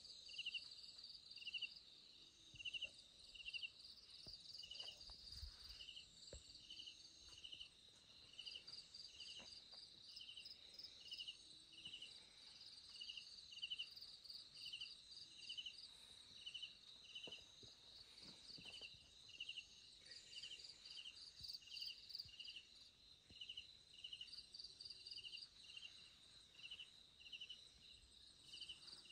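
Faint night insects chirping: a regular high chirp about every three-quarters of a second over a steady high-pitched drone and a softer trill.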